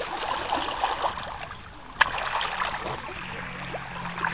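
Calm sea water lapping and splashing lightly around people sitting on an inflatable in the shallows, with one sharp click about two seconds in. From about three seconds in, a low steady hum joins.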